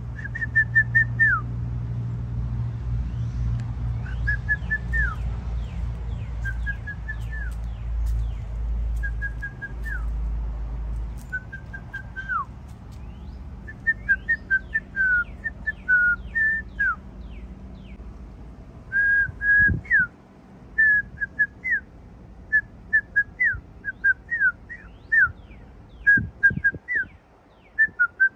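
A person whistling to get a cat's attention: short phrases of a few quick notes ending in a downward slide, every couple of seconds at first, then quicker, denser runs of short whistles in the second half.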